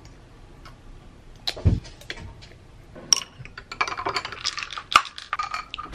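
Glass clinks and taps as a dropper bottle and a large glass water bottle are handled. There is a dull thump about a second and a half in, then a quick run of clinking in the second half as the water in the bottle is stirred.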